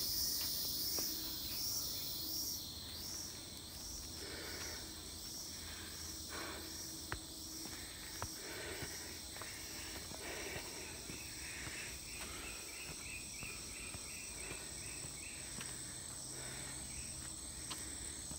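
Tropical rainforest insect chorus: a steady high-pitched buzzing, with a rapid pulsing call of about three beats a second joining about twelve seconds in. Soft footsteps on leaf litter underneath.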